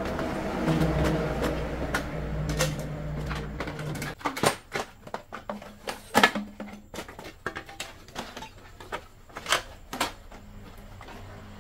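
An engine running steadily, cutting off about four seconds in. A string of irregular sharp knocks and clatter follows, the loudest about six seconds in.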